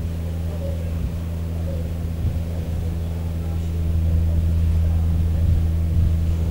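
A steady low hum with a few faint thumps.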